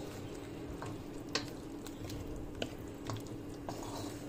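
Wooden spatula stirring chicken pieces through thick sauce in a metal wok: soft squelching, with about five sharp clicks as the spatula knocks against the pan. A steady low hum runs underneath.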